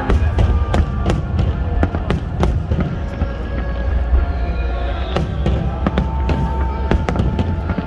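Aerial firework shells bursting in quick succession: many sharp bangs and crackles over a continuous low rumble of booms.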